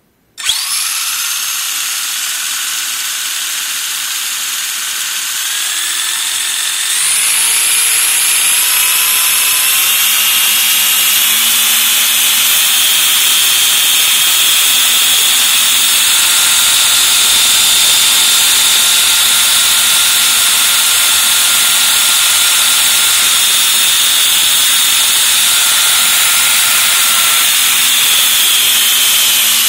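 Castle 5700kv brushless motor on a Mamba Max Pro controller and 2S LiPo, spinning a Team Associated TC3 touring car's belt drivetrain with the wheels off the ground. A high whine starts suddenly about half a second in, steps up to a higher speed about seven seconds in and holds there, then begins to wind down at the very end.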